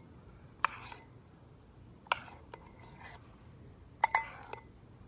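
A spoon clinking against a bowl a few times while slime is mixed: single sharp taps about a second in and near the middle, and a quick pair about four seconds in.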